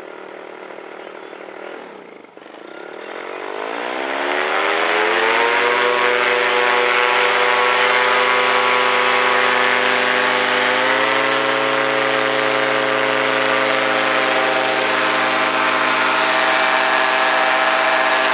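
Paramotor trike's engine and propeller running low, then throttled up over a few seconds, beginning about two seconds in, to steady high power for the takeoff run, with a slight further rise in pitch about eleven seconds in.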